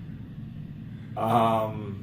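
A deep voice holding one drawn-out, slightly falling sound for under a second, about a second in, over a low steady rumble.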